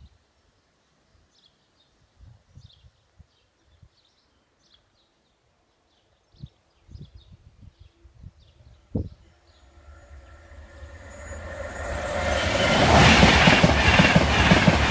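A high-speed electric express passenger train approaching and passing at speed, its rushing rumble building from just past halfway to loud near the end.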